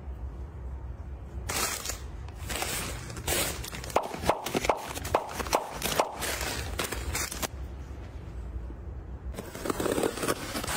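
Hard household items being handled and set down: a run of sharp clicks and knocks, densest in the middle, with rustling handling noise near the end.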